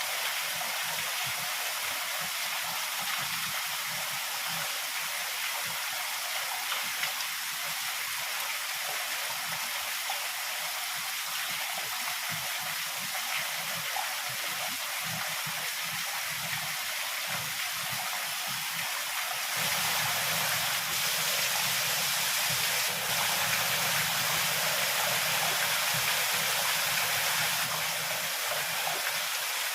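Heavy rain falling in a steady hiss. About two-thirds of the way through it suddenly grows louder for several seconds, then drops back to the earlier level.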